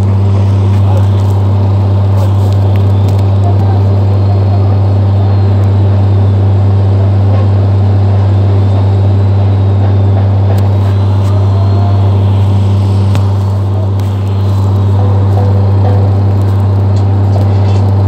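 Excavator's diesel engine running at a steady speed, heard from inside the operator's cab as a loud, constant low hum that dips slightly about two-thirds through.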